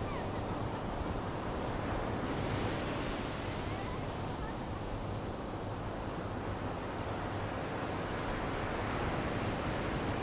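Steady wash of sea surf, with wind noise on the microphone.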